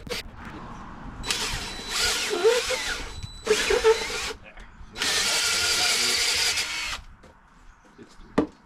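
Cordless power drill running in four bursts, the last and longest about two seconds, while working the anchors for a sawmill track.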